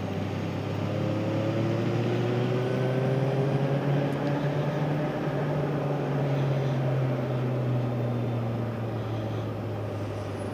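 Honda VFR800's V4 engine running at road speed, a steady drone whose pitch climbs gently over the first few seconds and then levels off, under a haze of wind and road noise.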